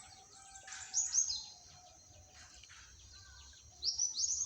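A bird calling outdoors: two runs of quick, high, falling chirps, one about a second in and another near the end, over faint outdoor background.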